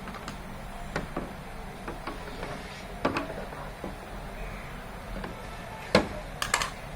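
A few sharp knocks and clicks over a low steady hum, the loudest about six seconds in and two more close together just after.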